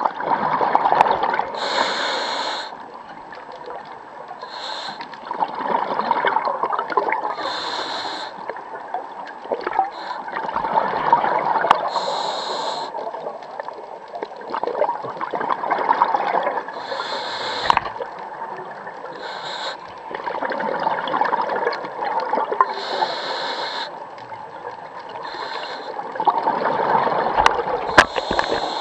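Scuba diver breathing through a regulator underwater: each breath brings a short hiss on the inhale and a gurgling rush of exhaled bubbles, about one breath every five seconds.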